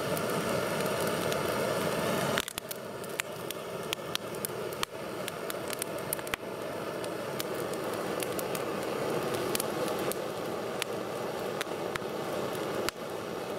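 Freshly lit campfire burning, with many sharp crackles and pops over a steady noise.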